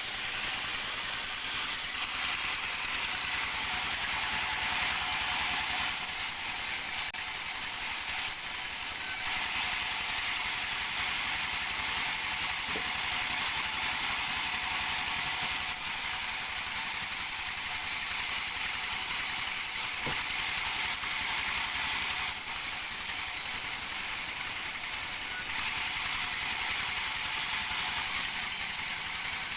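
Sawmill machinery running: a steady, dense mechanical noise with fast fine ticking, its tone shifting abruptly several times.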